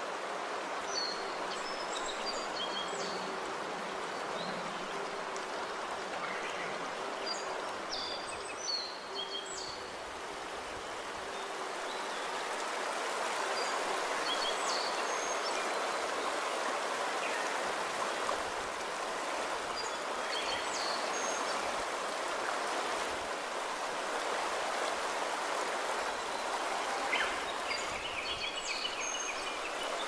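Shallow stream flowing steadily over pebbles: a continuous rushing of water. Short high bird chirps come in every few seconds.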